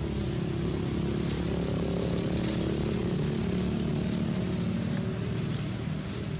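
A steady engine drone, low and humming, swelling slightly in the middle and easing off near the end, with a few short faint crackles on top.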